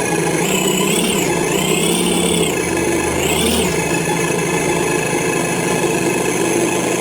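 Simulated diesel engine from an RC engine sound module, played at full volume through its small speaker: idling, revved up and back down three times in the first few seconds, then settling to a steady idle. Really loud.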